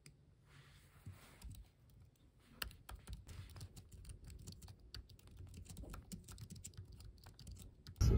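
Typing on a low-profile computer keyboard: a few scattered keystrokes at first, then a steady run of quick, light key clicks from about two and a half seconds in. Loud music cuts in at the very end.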